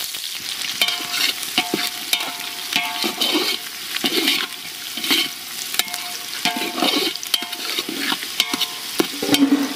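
Sliced onions sizzling in hot oil in a metal pot, stirred with a metal ladle that clinks and scrapes against the pot's sides again and again.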